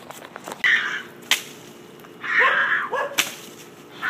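Two short yells from a person about one and a half seconds apart, each followed by a sharp crack.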